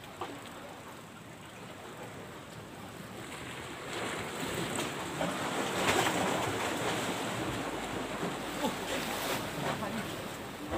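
Sea waves washing against a rocky shore, with wind on the microphone. The wash swells about four seconds in and is loudest around six seconds.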